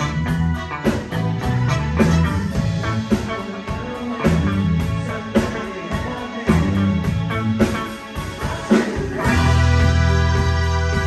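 Live band playing: a steady beat of sharp hits over a pulsing low bass line, settling into a long held chord about nine seconds in.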